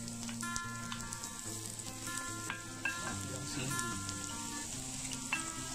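Hot oil sizzling steadily in a frying pan as sliced onion and julienned ginger are added to frying garlic, with a few light clicks from the ingredients and spoon. Soft background music plays under it.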